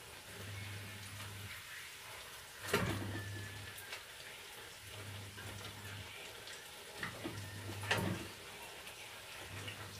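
Food sizzling and crackling in a frying pan on a gas stove, with a few sharp clinks of a utensil against the pan as it is stirred, the loudest about three seconds in and near the end.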